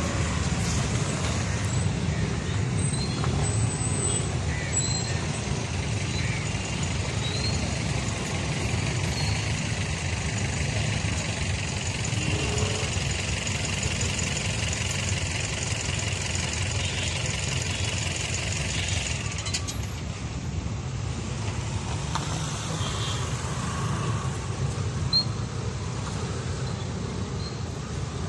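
Steady low engine drone, with a high hiss over it that cuts off suddenly about two-thirds of the way through.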